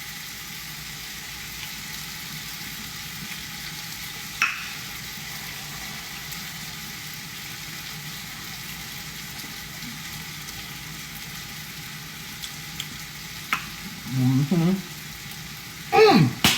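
Food sizzling steadily as it fries in a pan, with a couple of sharp clicks, one about four seconds in and another later.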